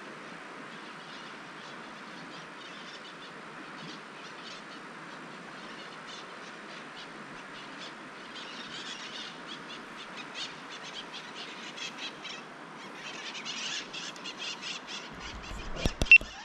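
Outdoor ambience at a river: a steady hiss, with bird chirps that grow busier in the second half. A few sharp knocks come near the end.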